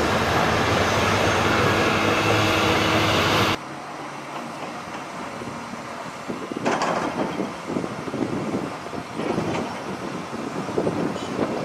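Heavy diesel earthmoving machinery, an excavator and articulated dump trucks, running loudly at close range. About a third of the way in the sound cuts off abruptly to a quieter engine with irregular rumbling and a few sharp knocks.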